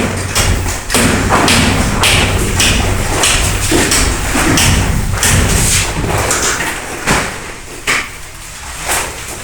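Repeated heavy thuds and knocks of building work on a site, roughly two a second, over a steady low hum; the knocks thin out near the end.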